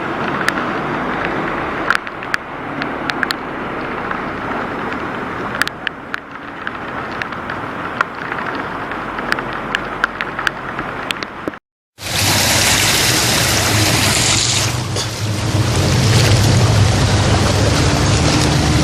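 Flooded-street ambience: water splashing and rushing with motor vehicles running, many sharp clicks and splashes in the first part. After an abrupt cut about 12 seconds in, a louder passage follows with a steady low engine hum over rushing water.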